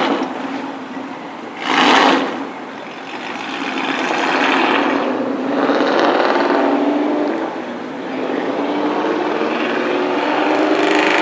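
A performance car's engine accelerating hard as it pulls away. Two short, loud bursts of revving near the start are followed by three long pulls in which the engine note climbs and then drops back with each gear change.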